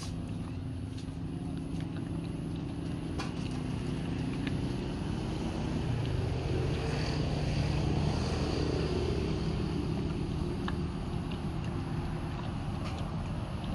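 Low, steady engine rumble of a motor vehicle, swelling to its loudest about halfway through and easing off again, with a few faint clicks.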